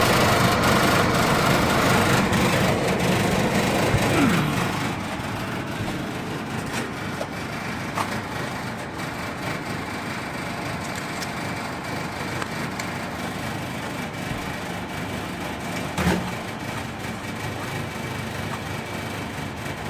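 A machine running steadily, louder for the first few seconds and then settling to a lower even hum, with a few single clicks or knocks.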